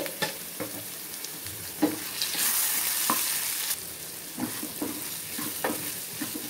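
Spiced potato cubes sizzling in oil in a frying pan while a wooden spatula stirs them, with scattered short knocks and scrapes of the spatula on the pan. The sizzling grows louder for about a second midway.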